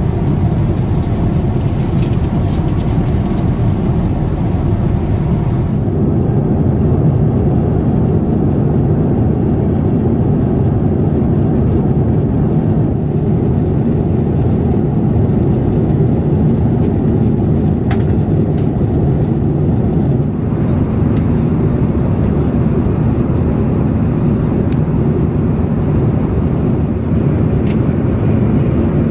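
Steady cabin noise of a Boeing 787 airliner in cruise: an even, low rush of airflow and engine sound inside the cabin.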